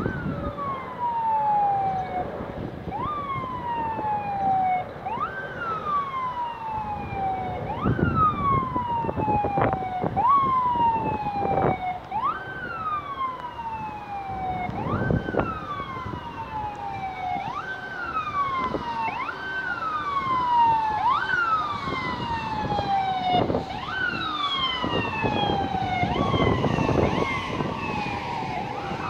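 An emergency vehicle's siren sounds over and over: each cycle jumps up in pitch and slides down over about two seconds, and some cycles overlap. Gusts of wind buffet the microphone now and then.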